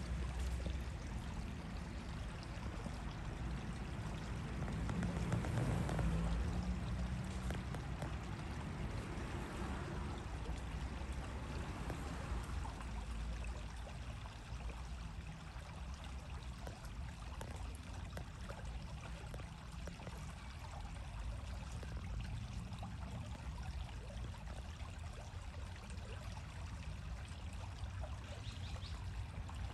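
Steady rushing of running water, with a low rumble that swells about five to seven seconds in.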